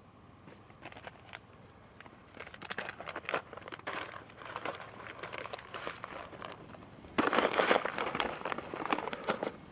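Crinkling and rustling of something being handled, in irregular bursts that begin about a second in, grow busier, and are loudest over the last two and a half seconds.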